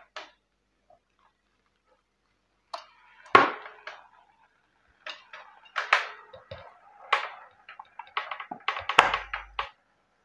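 Hard kitchen handling sounds around a closed electric sandwich maker: a sharp knock about three seconds in, then a run of short clicks and clatters through the second half.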